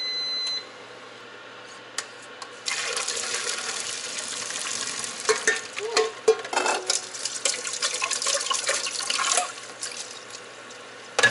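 A short electronic beep. From about three seconds in, water gushes into a kitchen sink, with clicks and clatter of a mesh strainer and bowl, as boiled soba noodles are drained and rinsed under cold running tap water. It eases off near the end, then comes a sharp knock.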